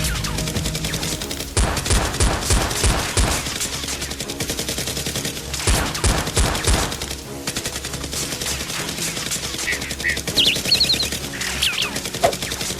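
Rapid bursts of automatic gunfire sound effects, shot after shot in quick runs, over a steady background music track.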